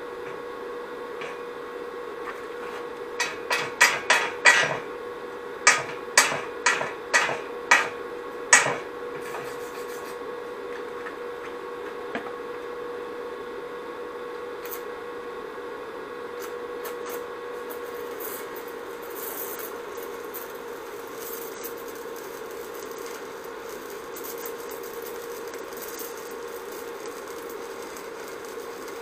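Arc welding a crack in a steel motorcycle frame tube with a stick electrode. First comes a run of about a dozen sharp metallic knocks in two quick groups. Then, from a little past halfway, the arc crackles off and on as short beads are laid bit by bit so the frame does not distort. A steady hum runs underneath.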